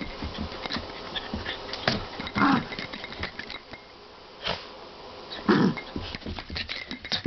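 Two poodles play-fighting: two short dog vocal sounds, about two and a half and five and a half seconds in, over scuffling and scattered clicks.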